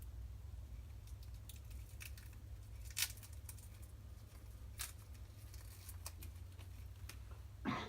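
Protective plastic film being peeled off a wristwatch, heard as scattered faint crinkles and a few sharper clicks, the sharpest about three seconds in, with a short rustle near the end. A low steady hum runs underneath.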